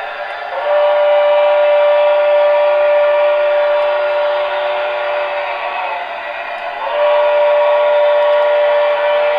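Onboard Paragon 4 DCC sound of an HO scale PRR S-2 steam turbine locomotive model, played through its small speaker: two long chime whistle blasts, the first dropping slightly in pitch as it ends, over a steady rushing running sound.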